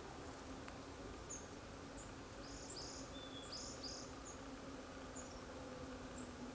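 Long-tailed tits giving high, thin contact calls: short notes scattered throughout, with a quick cluster of them from about two to four seconds in.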